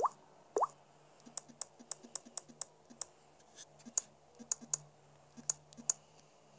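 Smartphone on-screen keyboard key-press sounds as text is deleted and retyped: two short rising blips in the first second, then a quick run of evenly spaced clicks, followed by more irregular clicks.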